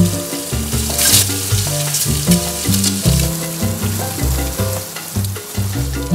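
Marinated hard-boiled eggs sizzling as they fry in hot oil, turned with a wooden spatula, over background music with a moving bass line.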